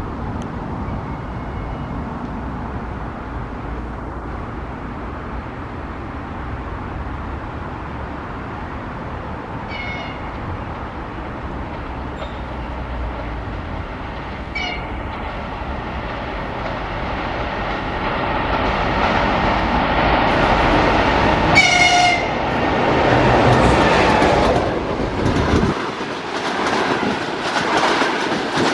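EP20 electric locomotive hauling a double-deck passenger train, its running rumble growing louder as it approaches and passes. Its horn gives a short toot about a third of the way in and another about halfway, then a longer blast about three-quarters through. Near the end, the double-deck coaches pass close by with a rhythmic clickety-clack of wheels over rail joints.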